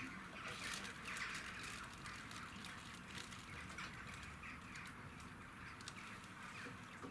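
A crowd of waterbirds gathered for bread, making many short overlapping calls.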